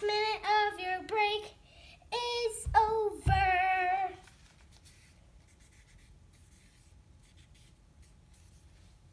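A young girl singing sustained notes for about four seconds, with two low bumps near the end of the singing. Then comes the faint, intermittent scratch of a felt-tip marker writing on a small notepad.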